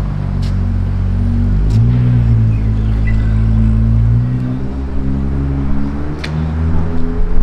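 A car engine and exhaust running loud with a deep note. Its pitch steps a little early on and then climbs slowly through the last few seconds as the car accelerates.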